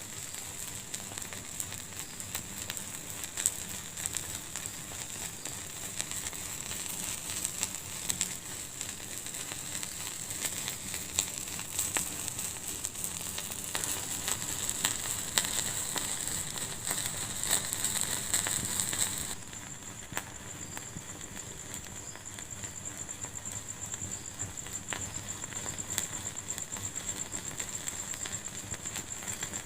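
Wood fire crackling in a fireplace: frequent sharp pops and snaps over a steady hiss. About two-thirds of the way through, the hiss abruptly thins and the crackling turns quieter and more even.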